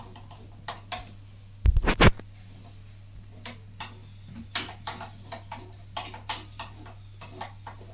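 Irregular clicks and light knocks from a hand working the joystick of a G-Matronix R30+ autorefractometer, with two louder knocks about two seconds in, over a steady low hum.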